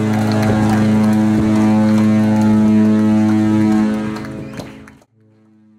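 Loud, steady low droning tone with a stack of overtones, fading about four seconds in and stopping near five seconds, with a faint tail after.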